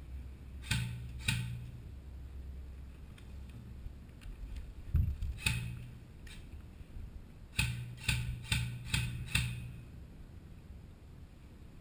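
Airsoft guns firing single shots as sharp cracks: two about half a second apart, one more about 5.5 s in, then a quick string of five at about two a second near the end. A dull thump comes just before the lone shot.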